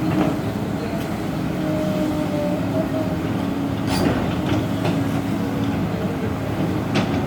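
Heavy excavator's diesel engine running steadily with a low drone, with a few sharp metallic knocks: about a second in, at about four seconds and near the end.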